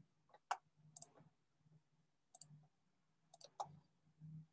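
A few faint, irregular clicks at a computer, about half a dozen over four seconds, in near silence.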